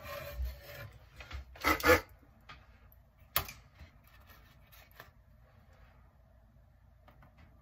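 A printed circuit board being handled and turned over on a wooden workbench: it slides and rubs, then knocks twice loudly about two seconds in, with a sharp click a little later and a few lighter taps before it goes quiet.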